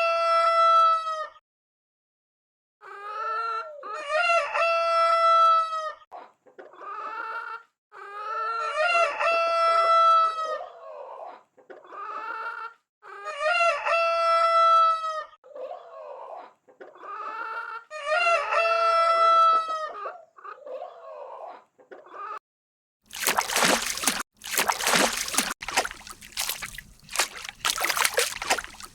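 Rooster crowing about five times, each crow a long drawn-out call, with shorter clucking calls between them. Near the end the crowing gives way to a rough, irregular noise with sharp pulses.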